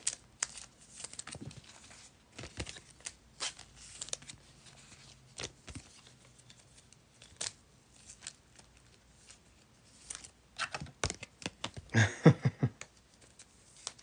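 Trading cards and packs being handled: scattered light clicks and short rustles, with a louder burst of handling noise about twelve seconds in.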